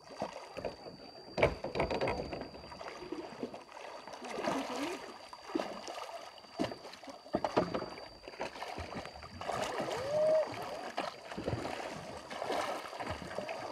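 A bamboo raft being paddled: irregular splashing of paddles in the water, with several sharp knocks.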